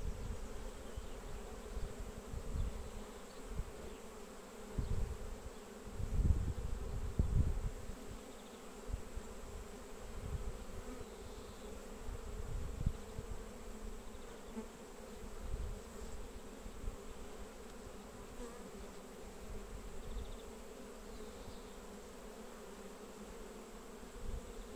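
Honeybees humming steadily around an open hive as their brood frames are lifted out. A few low rumbles come through about five to eight seconds in.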